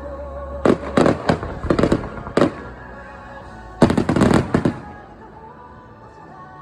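Aerial fireworks bursting: a quick series of sharp bangs over about two seconds, then a second tight cluster of bangs a little past halfway, with music playing underneath.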